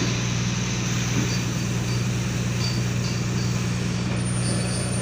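Steady low engine drone with an even hum that holds one pitch, over a constant rushing noise.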